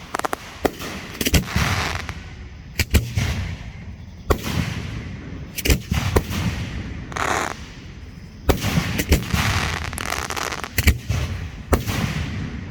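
Aerial fireworks going off in quick succession: sharp bangs every second or so, mixed with stretches of crackling hiss.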